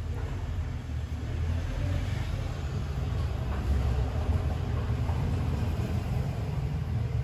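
A steady low rumble with a faint hiss above it, with no distinct events standing out.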